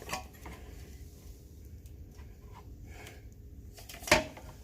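Quiet hand-work with tools and parts: a few faint clicks and one sharp knock about four seconds in.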